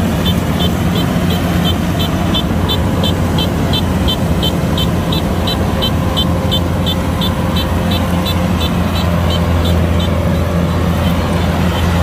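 Kubota DC-105X rice combine harvester running steadily under load: a constant low engine and machinery drone. A high, regular ticking about three times a second rides over it and fades out near the end.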